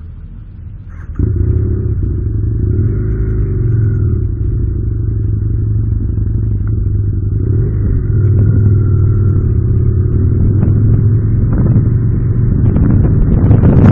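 Motorcycle engine running, jumping sharply louder about a second in, then pulling away and riding slowly, its note rising and falling a few times and growing louder near the end.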